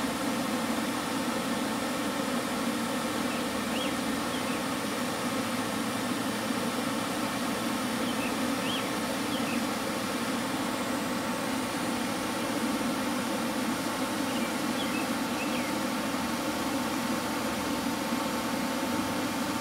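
Electric blower motor running steadily as it inflates the squeeze room's tarp air pillows: a constant hum with one steady higher tone held throughout.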